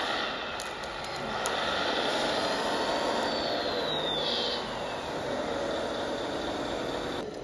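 Electric drive motors and gearboxes of radio-controlled construction models running steadily, with a high whine that falls in pitch from about three to five seconds in and a couple of clicks near the start.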